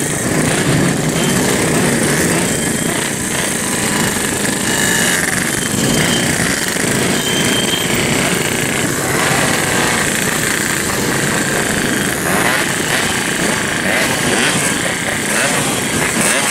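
Many Yamaha RX-King single-cylinder two-stroke motorcycles running and being revved together at close range, a dense, continuous, loud engine noise.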